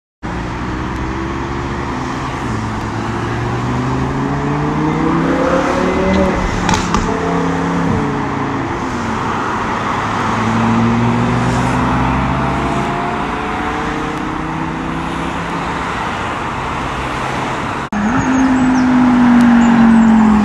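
Audi R8's V10 accelerating hard away through the gears, its note climbing and dropping back at each upshift, with other traffic on the road. About 18 s in it cuts to a Lamborghini Huracán Performante's V10 pulling away, louder still.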